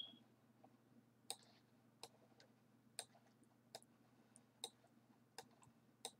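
Near silence with a faint low hum, broken by short, sharp computer mouse clicks, about one every three-quarters of a second.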